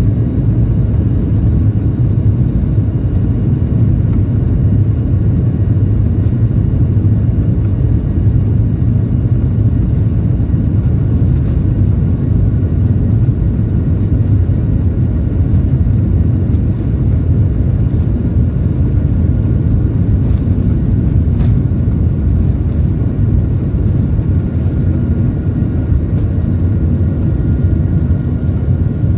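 Jet airliner's engines and rolling rumble heard from a cabin seat over the wing as the plane moves along the runway: a loud, steady, deep rumble.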